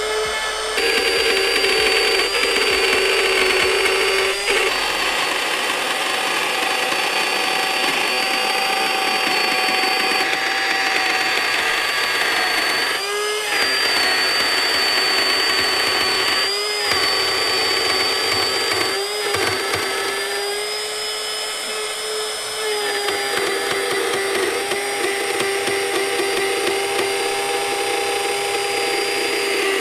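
Battery-powered trim router with a flush-trim bit running steadily as it cuts all the way through MDF along a circle jig. Its high whine dips briefly in pitch a few times as the bit bogs under load.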